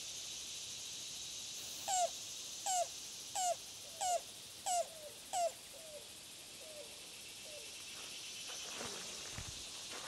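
Yellow-billed cuckoo calling: six loud, throaty notes about two-thirds of a second apart, then three fainter notes spaced wider, the series slowing at its end. A steady high hiss runs underneath.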